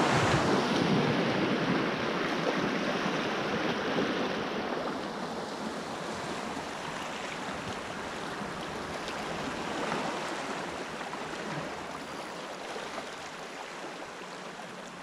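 Small waves washing over the rocks at the water's edge, a steady rushing of water that is louder for the first few seconds and then eases off.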